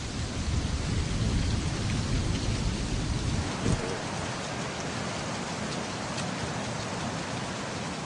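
Steady rushing of surf breaking on a sandy beach, with a deep rumble under it for the first few seconds that then falls away.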